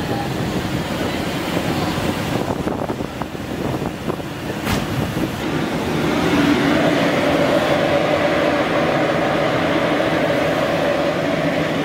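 Three-layer continuous nut roasting machine running with a steady mechanical rumble. A sharp click comes about four and a half seconds in, and a steady hum joins from about six seconds in.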